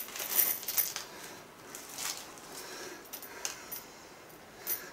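Light, scattered clicks and rustles of small screws and fittings being picked up and sorted by hand.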